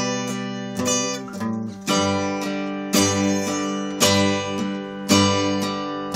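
Two steel-string acoustic guitars strumming chords together in a steady rhythm, with a strong strum about once a second. The chord changes about two seconds in.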